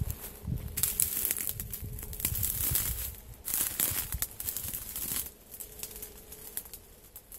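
Footsteps crunching and rustling through dry grass and brush as a person pushes into undergrowth: a run of irregular crackling steps that fades off after about five seconds.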